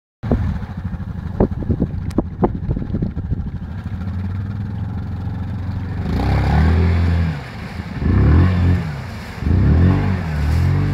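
Yamaha Grizzly ATV's single-cylinder engine running at a low steady speed, with a few sharp knocks between one and three seconds in. From about six seconds in it revs in three bursts that rise and fall as the quad pushes through deep muddy water.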